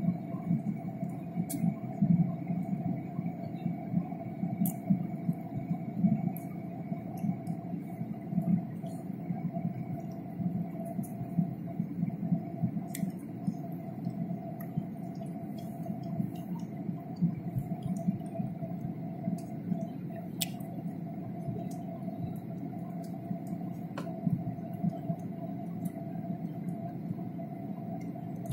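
Steady low drone of a jet airliner's engines and airflow heard inside the passenger cabin while descending to land, with a few faint scattered clicks.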